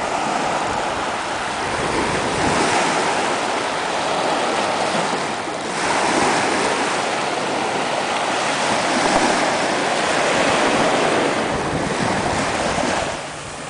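Small waves breaking and washing up a sandy beach, in surges that swell and ebb, dipping briefly about six seconds in and near the end. Wind buffets the microphone.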